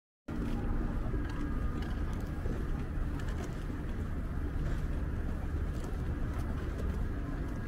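City street ambience: a steady low rumble of road traffic, with light clicks scattered through it. The sound cuts in abruptly just after the start.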